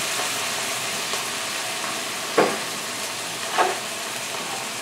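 Chopped onion and garlic sizzling steadily in a hot frying pan, with a splash of white wine just added. Two brief sharp sounds stand out, about a second apart, a little after halfway.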